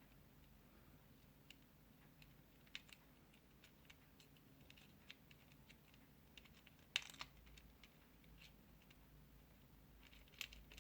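Near silence broken by faint, scattered small clicks and taps of hardware being handled as a cooler bracket is fitted to a graphics card, the loudest about seven seconds in.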